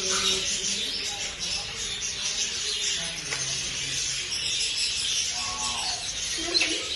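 Many small caged birds chirping and chattering at once, a dense high twittering with a few faint voices in the background.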